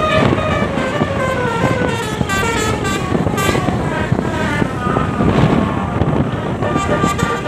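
A bus's basuri telolet horn playing a fast tune of short, quickly changing notes, over a steady rumble of engine and road noise.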